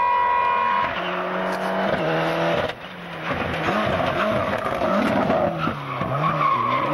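Rally car engine running hard on a stage, its pitch rising and falling with throttle and gear changes, with tyre noise; the level dips briefly about three seconds in.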